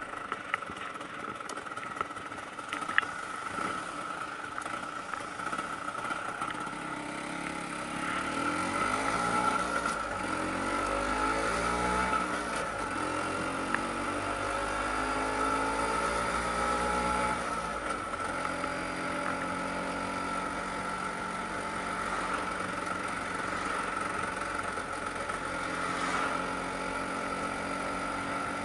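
Vespa PX 150's two-stroke single-cylinder engine heard from the handlebars. It runs quietly at first, then about eight seconds in pulls away, its pitch rising, dropping back and rising again through the gears, and settles into steady cruising.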